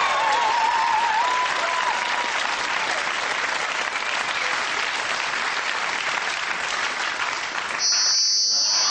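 Studio audience applauding and cheering. Just before the end, the Doctor's sonic screwdriver sound effect cuts in abruptly: a steady, high-pitched whirr of several tones.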